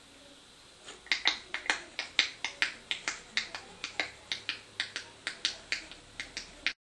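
A quick run of sharp clicks or taps, about four a second, starting about a second in and cutting off abruptly near the end.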